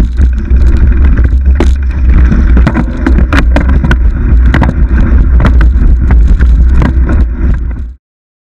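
Mountain bike rattling and clattering over a dirt singletrack trail, with many sharp clicks and knocks, under a heavy, deep wind rumble on the camera's microphone. Cuts off suddenly about eight seconds in.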